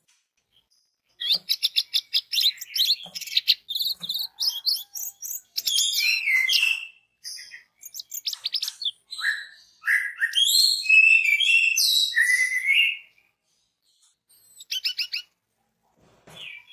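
Orange-headed thrush singing a long, varied song of rapid chattering notes mixed with whistled, slurred phrases, starting about a second in. A short pause follows, then a brief burst of notes near the end.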